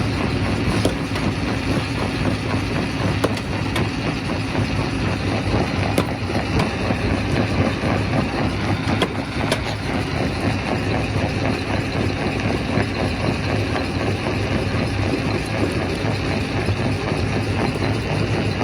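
Quarry rock crusher running: a steady, dense mechanical din with a low hum, and a few sharp knocks of rock striking metal.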